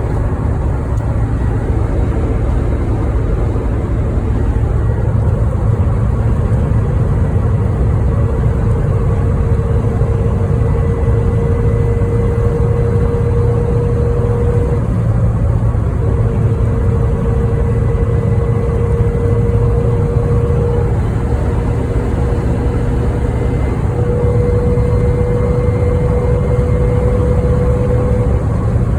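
Freshly rebuilt VW Vanagon Syncro transmission, with a straight-cut fourth gear and GT 5.43 ring and pinion, at highway speed, heard from inside the cabin. A steady low drone of engine and road carries a gear whine that creeps slowly upward in pitch and drops out briefly about halfway through.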